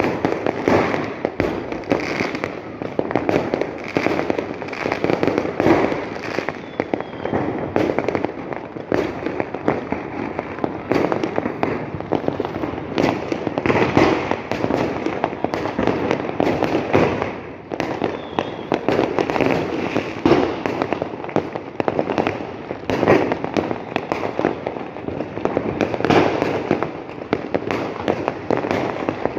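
Fireworks going off in a continuous dense barrage: many overlapping bangs and pops with no pause.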